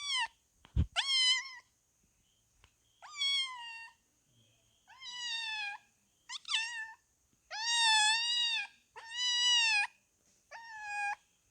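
Cat meowing repeatedly: seven high-pitched meows, each about half a second to a second long, coming every one to two seconds.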